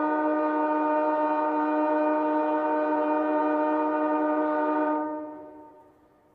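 Train horn sounding one long, steady blast at an unchanging pitch, then fading away over about a second, about five seconds in.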